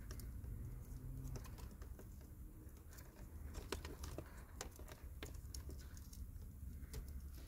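Faint, irregular small clicks and taps of hands handling wires and tools during a wiring repair, over a low steady hum.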